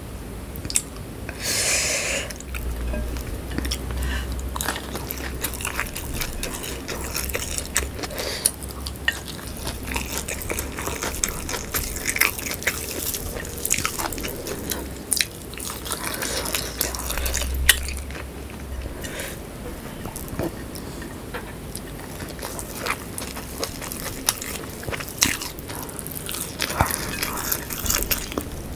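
Close-up eating sounds: biting into and chewing whole shallots in sambal, with many sharp crunches and wet clicks of the mouth.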